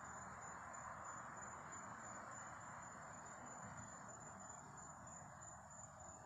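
Crickets trilling: a faint, steady high-pitched tone without a break, over a soft even hiss.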